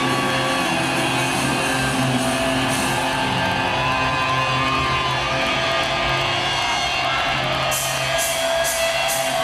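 Heavy metal band playing live: distorted electric guitars holding long notes over bass and drums, with the crowd yelling. Near the end come four sharp cymbal hits in quick succession.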